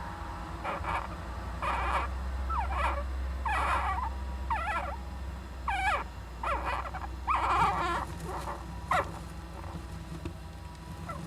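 Young Japanese giant flying squirrel calling: about ten short squeaky calls, each bending up and down in pitch, in an irregular series that stops near the end.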